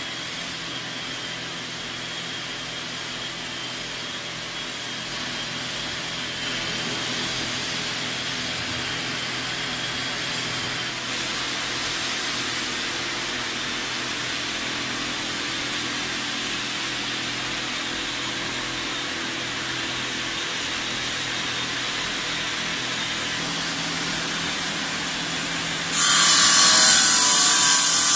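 CKDQ 500/600 bridge saw running and sawing, a steady machine noise. Near the end it becomes suddenly louder and harsher, with a strong hiss.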